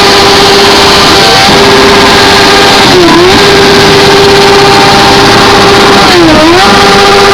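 Kawasaki Z750's inline-four engine through a WR aftermarket exhaust, revved and held at a steady high pitch, very loud. The revs dip sharply and climb straight back about three seconds in and again about six seconds in.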